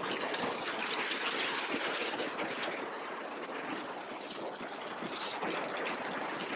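Steady rush of wind and road noise on a helmet-mounted camera's microphone while riding a 2018 Yamaha MT-07 motorcycle at road speed, easing a little in the middle.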